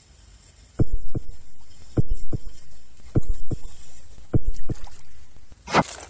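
Four pairs of sharp, heavy thumps about a second apart, each pair a fraction of a second apart, then a brief noisy burst near the end.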